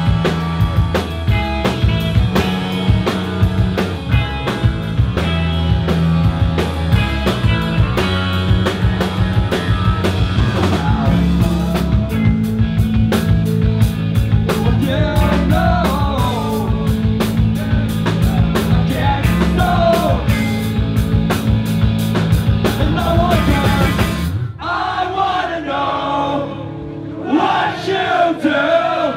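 Punk rock band playing live: electric guitars, bass guitar and drums with crashing cymbals, with voices singing from about halfway through. About 24 seconds in the drums and bass drop out, leaving mainly the singing voices.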